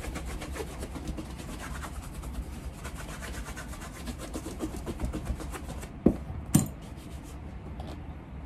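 Water-dampened goat-hair brush swept rapidly back and forth over a freshly waxed leather shoe, a quick run of rubbing strokes; this wet brushing evens out the wax shine. The strokes stop about six seconds in, followed by two sharp knocks.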